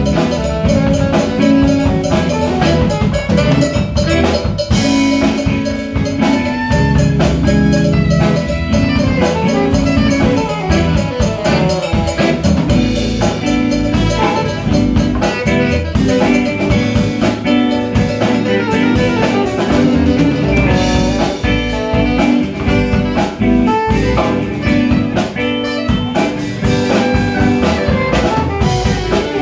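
Live instrumental jazz band playing: alto and tenor saxophones over electric guitar, bass guitar, drum kit and hand percussion, with a steady groove.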